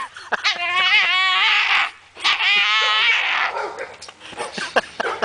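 French bulldog hanging from a rope with the rope gripped in its jaws, giving two long, high-pitched, wavering whine-growls. They are followed by a string of short clicks and knocks.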